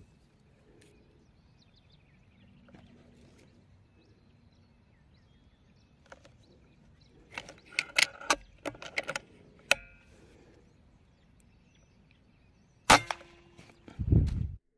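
A 5.5 mm PCP air rifle firing: one sharp, loud crack about two seconds before the end, followed about a second later by a low thump. Several seconds earlier, a run of sharp clicks and taps.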